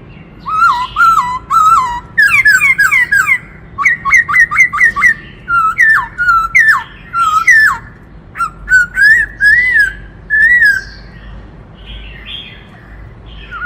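Black-throated laughingthrush singing: loud, varied phrases of whistled notes that slide up and down, some in quick runs of short notes, with brief pauses between phrases.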